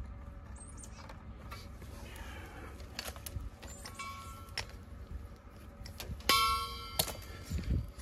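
Brass refrigerant hose fittings and metal parts clinking and ringing as a gauge hose is hooked up at an AC condenser's service valves, with a few light clicks and one louder ringing clang about six seconds in.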